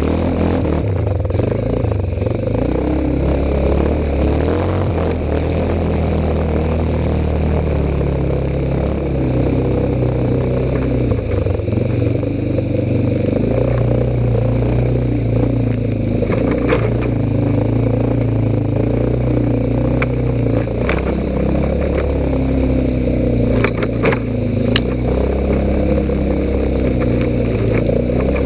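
ATV engine running over a muddy trail, its note rising and falling with the throttle. Scattered sharp clicks and rattles, mostly in the second half.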